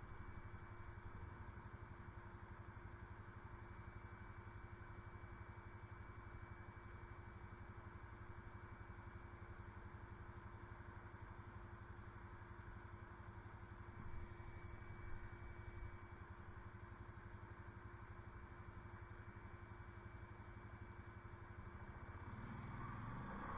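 ATV engine idling steadily while the machine sits parked, with a slight rise in level near the end.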